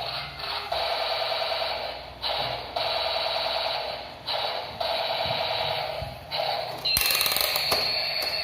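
Battery-powered toy vehicle playing its electronic sound effect: a fast rattling noise in repeated bursts of one to two seconds with short breaks between them. The last burst is louder, with a high steady tone.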